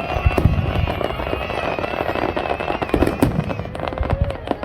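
Fireworks display: a dense run of bangs and crackling bursts, with heavier booms near the start and again about three seconds in.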